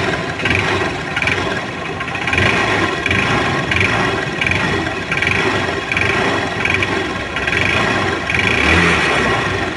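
Hero Honda CBZ Xtreme's single-cylinder four-stroke engine running, with a noise that pulses about every two-thirds of a second. The mechanic puts the noise down to the piston, in an engine that is also burning oil.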